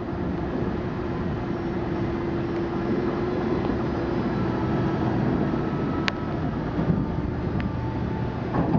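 Steady low machinery rumble at a ferry slip while the terminal's overhead passenger ramp lowers onto the ferry's upper deck, with a steady hum through the first half that fades out and two sharp clicks near the end.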